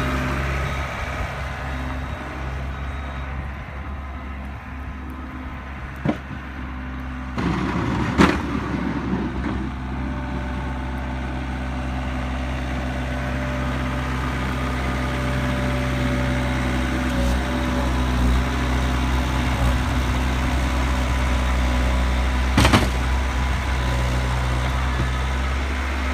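Caterpillar skid-steer loader's diesel engine running steadily as it pushes snow with a plow box. A few sharp knocks cut through it, the loudest about eight seconds in and another near the end.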